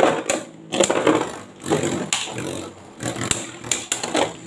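Two Beyblade Burst spinning tops whirring in a plastic stadium, with repeated sharp clacks as they strike each other and the stadium wall.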